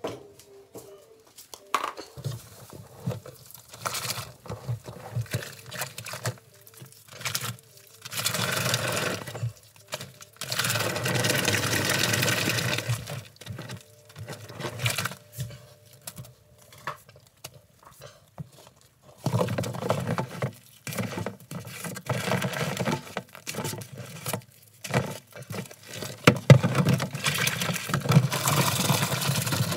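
Water sloshing and splashing as hands work through a basin of foamy soapy water, in irregular bursts with longer stretches of steady rushing noise.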